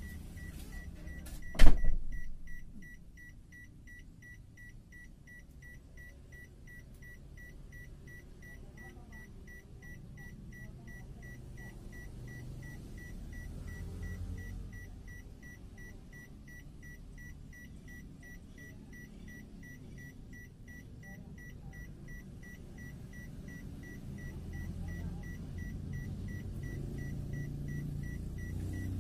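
Car's warning chime beeping evenly at about two beeps a second, one unchanging high tone, heard inside the car's cabin over a low idling rumble. A single loud thump comes about two seconds in.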